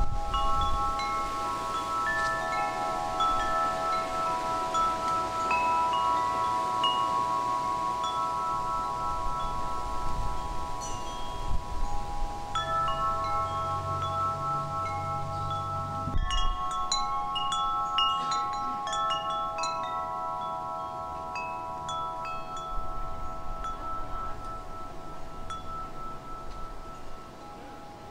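Wind chimes ringing, with many overlapping notes that hang on for several seconds and small high pings among them, over a light low rumble of wind.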